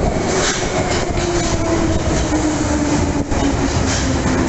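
London Underground Bakerloo line 1972 Stock train running into a deep-level tube platform: loud, steady wheel-and-rail noise with a whine that slowly falls in pitch as it arrives.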